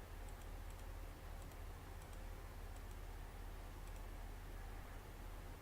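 Quiet room tone: a steady low electrical hum, with faint short ticks about twice a second.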